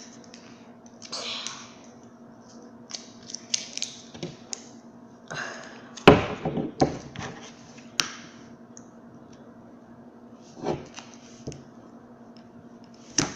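A knife cutting and scraping at the plastic casing of a 9.6 volt battery pack, in irregular scrapes and sharp clicks, busiest and loudest about six to eight seconds in. A faint steady hum runs underneath.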